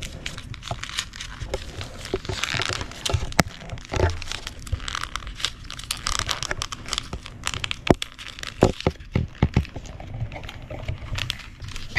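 Folded origami paper rustling and crinkling as hands press and slot the pieces of a paper spinning top together, with irregular small clicks and a few sharper knocks.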